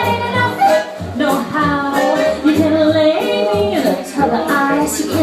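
A song playing: a singing voice holds and glides through a melody over a bass line that repeats in short notes.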